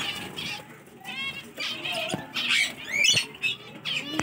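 A flock of small parrots chattering together: a dense mix of short squeaky calls and quick rising and falling chirps, with a couple of fast rattling trills.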